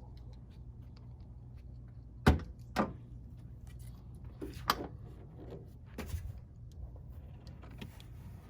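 Hard knocks and clunks from a car's trunk lid and the hardware fitted to it: two sharp ones about half a second apart a couple of seconds in, then a few lighter knocks. A steady low hum runs underneath.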